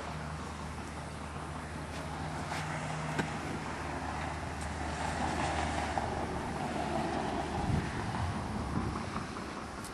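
Outdoor vehicle and road noise with a steady low hum, a little wind on the microphone and a few faint clicks. The noise swells gently through the middle, and the hum fades out about two-thirds of the way through.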